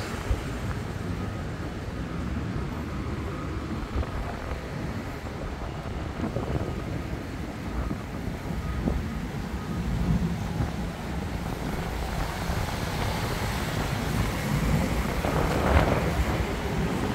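Road traffic going by, with wind rumbling on the microphone. The traffic noise swells toward the end.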